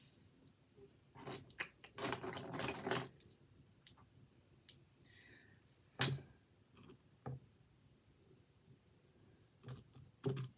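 Faint handling noises of someone working at a desk: a rustle or scrape lasting about a second, starting about two seconds in, and a few sharp taps, the loudest about six seconds in.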